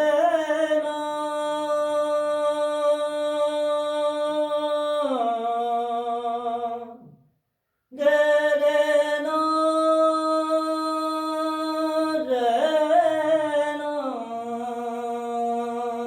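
Wordless singing in a raag-style melody: a voice holds long, steady notes, steps down in pitch about five seconds in, and breaks off for about a second. It then holds another long note that wavers and settles lower near the end.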